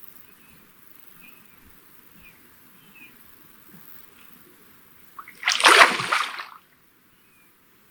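A single loud splash in the water lasting about a second, about five seconds in, ending abruptly; faint short high chirps are heard before it.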